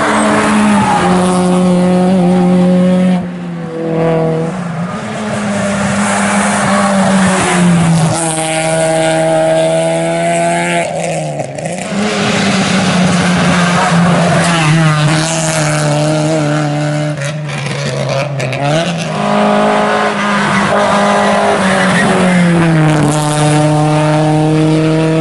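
Rally cars driven hard on a tarmac stage, one after another. Each engine revs high, its pitch dropping at every gear change and climbing again.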